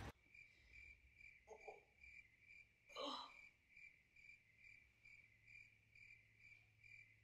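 Near silence: faint, evenly spaced high chirps a little over twice a second over a low hum, with a short soft sound about three seconds in.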